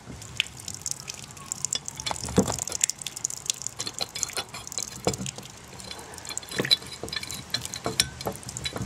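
Leftover water dripping and trickling from the drained pipework, with scattered clicks and knocks of a large steel pipe wrench being fitted and adjusted around the regulator's union nut; the loudest knock comes about two and a half seconds in.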